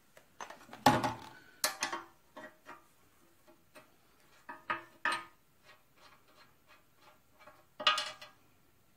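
Metal hand tools clinking and tapping against a cast-iron engine block as they are picked up, set down and worked at a drilled-out bolt hole. Scattered sharp clinks, some ringing briefly, with louder ones about one, five and eight seconds in.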